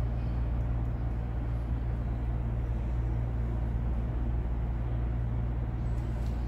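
Steady low hum and rumble, unchanging throughout, typical of a running machine such as air conditioning.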